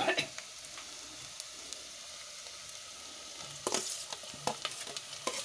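Sliced onions sizzling steadily in hot oil in a steel pot. About three and a half seconds in come knocks and scraping as chopped tomatoes are tipped in with a spoon.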